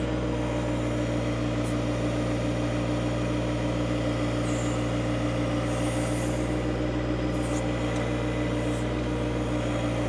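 Diesel engine of a John Deere sub-compact tractor running steadily while it powers the backhoe, its tone holding level throughout.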